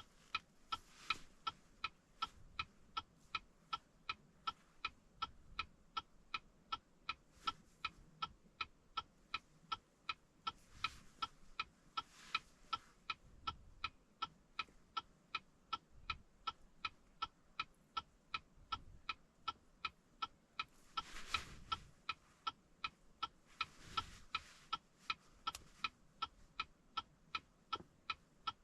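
Steady, even ticking with a slight beep-like ring, about two ticks a second, with a brief rustle about three-quarters of the way through.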